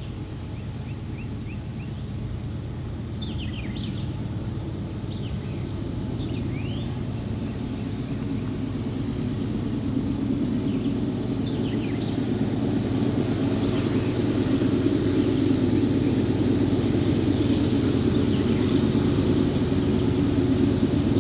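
Diesel locomotive engines running steadily and growing louder as they approach, with birds chirping throughout.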